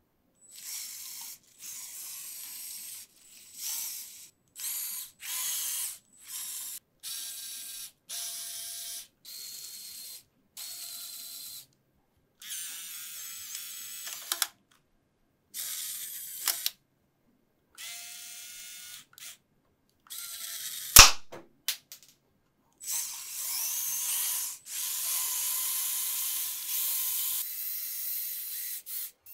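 Lego Technic electric motors and plastic gearing whirring in a series of short high-pitched bursts as the tank's tracks and turret are run, each stopping abruptly. About two-thirds of the way through there is a single sharp, loud snap.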